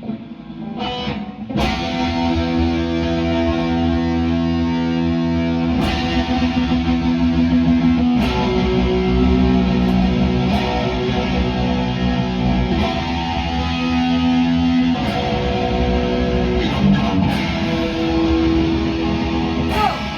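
Instrumental intro of a heavy rock song: distorted electric guitar playing held chords over a heavy low end. The full sound comes in about a second and a half in, and the chords change every few seconds.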